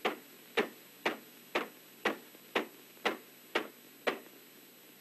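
Ball-peen hammer tapping soft metal with its peen end, peening it into shape: nine sharp, even blows about two a second, stopping about four seconds in.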